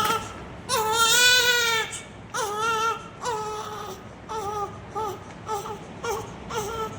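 Newborn baby crying: a long wail about a second in, two shorter wails after it, then a run of brief, weaker cries in quick succession.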